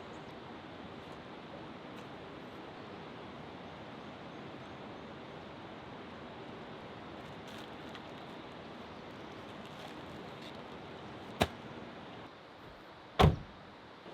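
Steady rushing water noise. Two sharp knocks come near the end, the second louder.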